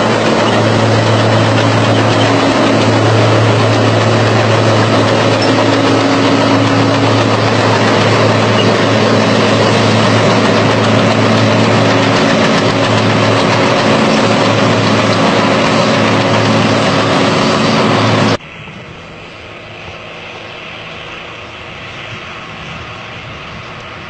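Large crawler bulldozers' diesel engines running loud and steady under load, with a strong low drone. About 18 seconds in the sound cuts abruptly to a quieter engine drone.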